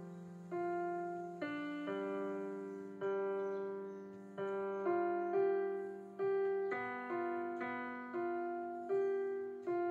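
Background piano music: a slow melody of single notes struck about once a second over held lower notes.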